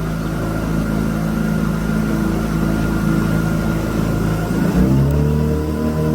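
An engine running steadily, its pitch stepping up about three-quarters of the way through as it speeds up.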